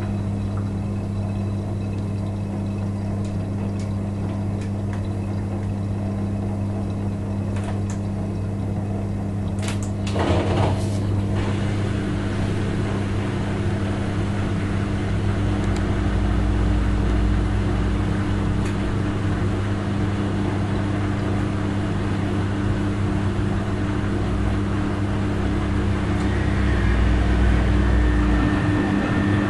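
Rex RL12X front-loading washing machine in the wash phase of its 40°C wool programme, running with a steady hum. There is a brief clatter about ten seconds in, and a deeper rumble through the second half.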